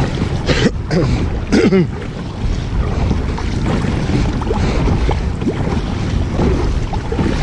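Wind buffeting the microphone over the wash of sea waves, with two short splashes about half a second and a second and a half in.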